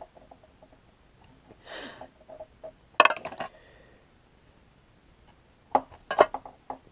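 Small metal fly-tying scissors clinking on a hard tabletop as they are set down and picked up: a sharp clatter about three seconds in and a quick run of clicks near the end, with a short soft rustle before them.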